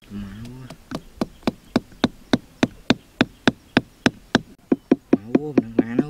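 Small hammer striking bamboo stakes to drive them into sandy ground: a regular run of sharp taps, about three or four a second, turning into quicker, lighter taps near the end. A low steady hum is heard briefly at the start and again near the end.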